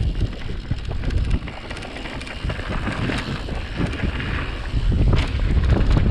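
Wind buffeting the microphone, a heavy low rumble with rushing noise, easing slightly in the middle and louder again near the end.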